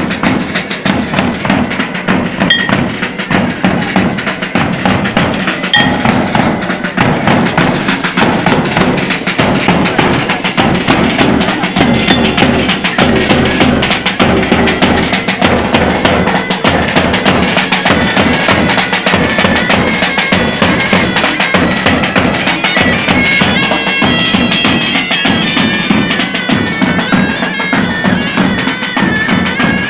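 Bagpipes playing a melody over a steady drone, with a drum beating fast strokes underneath; the melody stands out more in the second half.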